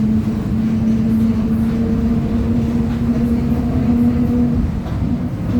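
Mercedes-Benz OF 1722M bus running at high revs, with a steady whine from a noisy, growling differential over the drivetrain rumble. The whine falls away briefly near the end.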